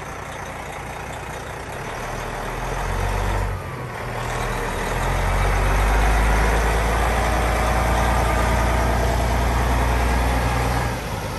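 Cabover semi with a 500 hp Detroit Series 60 diesel pulling away with its loaded trailer, the engine working under load. The engine note builds, breaks off briefly about three and a half seconds in at a gear change, then pulls strongly again before easing off near the end.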